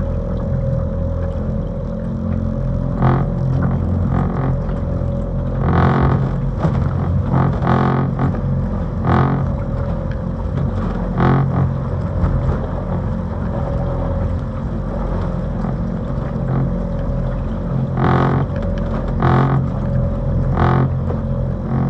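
Strong wind rumbling on the microphone over a steady low drone, with harsher gusts breaking through every second or two.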